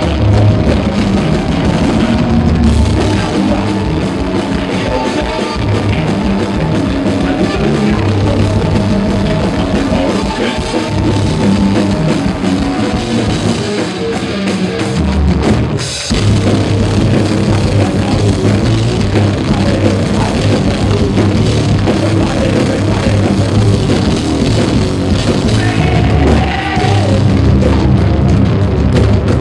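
Live metal band playing loud, with distorted guitars and drum kit, recorded from the crowd in poor, distorted audio. A little past the middle the band drops back briefly, then comes back in hard with a heavy hit.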